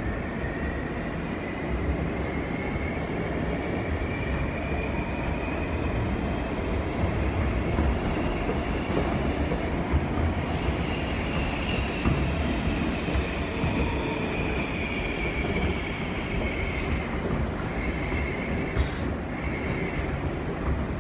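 R143 subway car's traction motors howling, heard from inside the car over the steady rumble of wheels on rail. The whine rises in pitch for about ten seconds as the train speeds up, then falls back and levels off as it slows. There is a short clank near the end.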